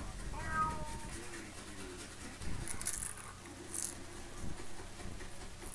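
A cartoon cat meows once, a short call falling slightly in pitch about half a second in, playing from an animation through computer speakers. It is followed by faint soft taps and two brief hissy scratching sounds near the middle.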